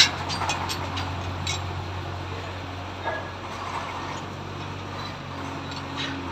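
Heavy diesel engine idling steadily, with a sharp knock right at the start and a few light clicks and clinks.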